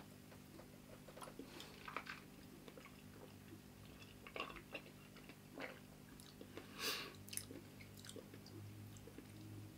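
Faint mouth sounds of someone tasting a sip of whisky: small wet smacks and clicks of the lips and tongue as the spirit is worked around the mouth, with a short breathy hiss about seven seconds in. A low steady hum lies underneath.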